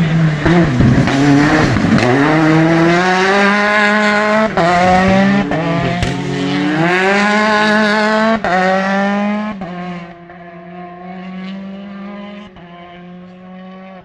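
Rally car passing at full stage speed, its engine uneven and low for the first couple of seconds, then revving up hard through the gears with sharp drops at each upshift. It fades away from about ten seconds in.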